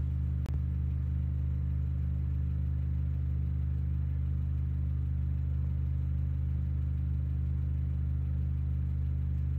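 A car engine idling steadily, a low even hum with no change in speed, and one faint click about half a second in.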